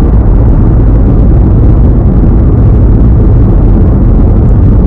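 Steady low rumble of a car driving, road and wind noise heard from inside the cabin.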